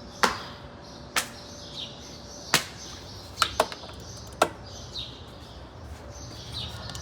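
Small birds chirping over and over, with a handful of sharp clicks about once a second, two of them close together in the middle.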